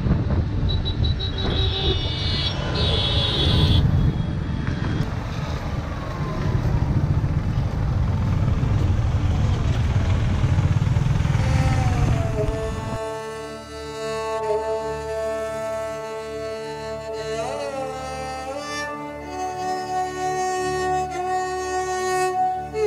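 Wind rushing over the microphone and road traffic noise from a moving motorbike. About halfway through this cuts off abruptly to music of long held notes.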